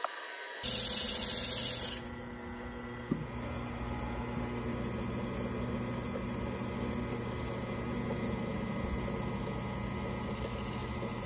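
Near the start, a loud hiss lasting about a second and a half as a sanding pad rubs inside the spinning wooden cup. After that the wood lathe runs with a steady hum while a cloth is held against the turning cup.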